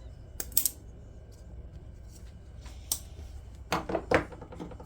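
Folding knives being handled and set down on a hard surface: a few light clicks, then a louder clatter of hard knocks with a brief ring a little before the end, over a steady low hum.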